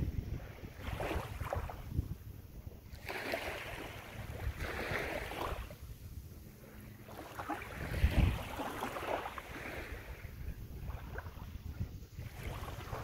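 Small waves lapping and washing up a sandy lake shore, swelling every two to three seconds, over a low rumble of wind on the microphone. A wind thump about eight seconds in is the loudest moment.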